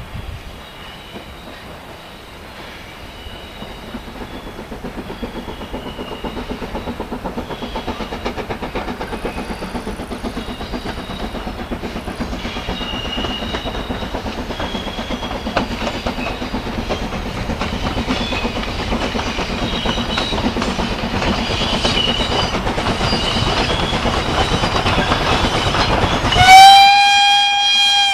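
Steam locomotive hauling a freight train approaches, its rhythmic running noise growing steadily louder. Near the end it gives a loud steam whistle that holds on one pitch.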